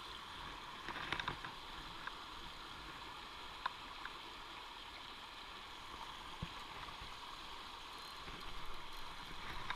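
Small river rushing steadily over a low weir into a churning pool, a constant water noise, with a few faint clicks.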